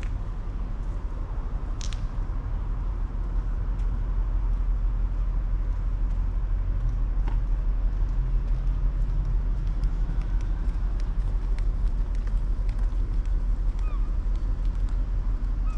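Steady low rumble of street traffic, with a few faint clicks scattered through it.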